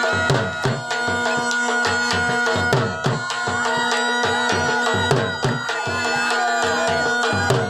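Background music in a traditional folk style: hand-drum strokes about twice a second under a melody over a steady held drone.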